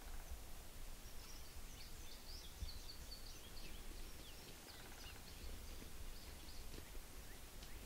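Faint outdoor ambience: a songbird sings a quick jumble of high notes for a few seconds in the middle, over a steady low rumble.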